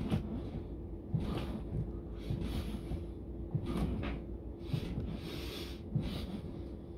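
A man's breathing during push-ups: short, hard breaths in and out, about one a second, from the effort of the exercise.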